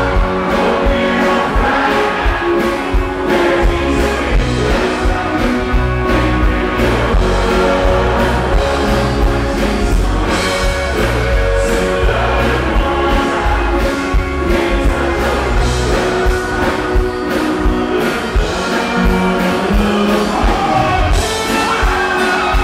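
Live country band playing a song: a man singing over guitars and bass with a steady drum beat.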